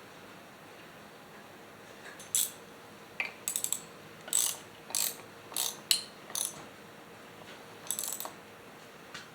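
A run of about nine short mechanical ratcheting clicks and rasps, some single and some in quick clusters, from hand work on an old Remington SL9 chainsaw.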